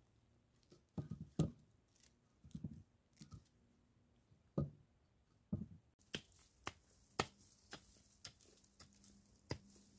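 Large stones being set by hand onto a dry-stone wall: a few dull knocks and scrapes of rock on rock in the first six seconds. About six seconds in, the sound changes to a run of sharper clicks and crunches on dry, stony ground.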